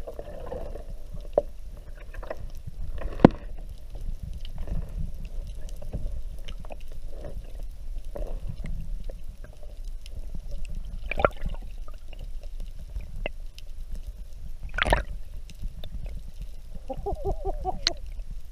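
Muffled underwater noise picked up by a GoPro held below the surface beside a kayak: a steady low rumble of water with scattered faint clicks and three sharp knocks, about three, eleven and fifteen seconds in.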